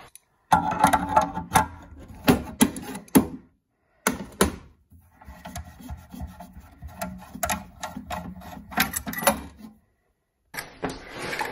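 Clicks, knocks and scraping of metal as the brass nut on the copper pipe to a combi boiler's expansion vessel is undone and the pipe is worked free of the vessel's threaded connection.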